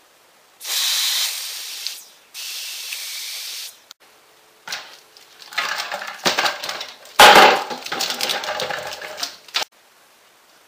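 An aerosol can spraying in two steady hissing bursts, each about a second and a half long. Then come several seconds of uneven knocking and rustling from objects being handled, which stop abruptly.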